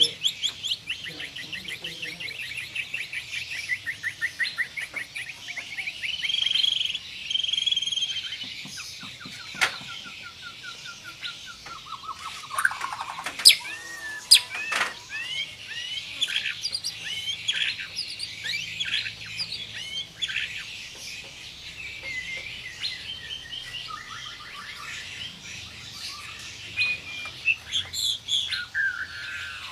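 White-rumped shama (murai batu) singing: a fast roll of closely repeated notes for the first several seconds, then varied whistled phrases, trills and sharp notes. A couple of sharp cracks stand out about halfway through.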